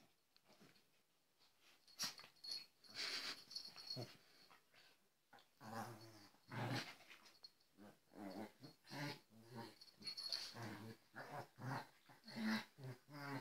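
Three dogs play-fighting, with low growls in short, repeated bouts from about halfway through.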